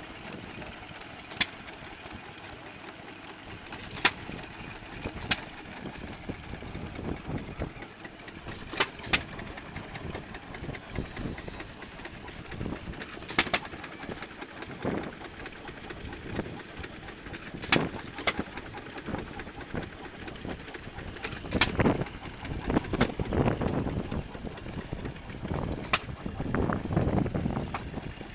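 Vintage stationary engine with twin flywheels firing now and then: single sharp exhaust bangs one to four seconds apart, with the engine coasting between them in the manner of a hit-and-miss governed engine. Near the end a denser, more continuous low running sound builds up.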